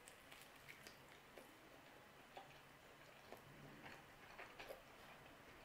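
Faint chewing of a mouthful of calzone: soft, scattered mouth clicks over near silence.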